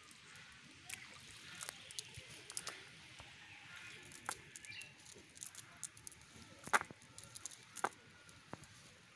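A wet cast net being pulled and handled on mud: irregular sharp clicks and light patter, the two loudest clicks near the end.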